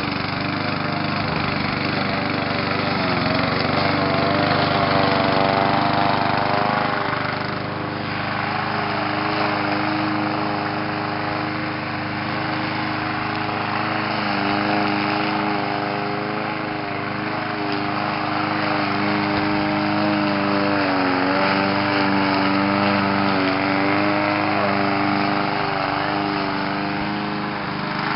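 Small petrol lawn mower engine running steadily under mowing load, its pitch dipping slightly now and then.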